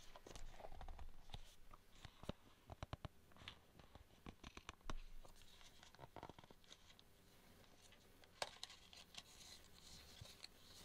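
Faint handling noise from a small cardboard product box: soft scrapes and rustles with scattered small clicks, including a quick run of clicks about three seconds in and a sharper click about eight seconds in.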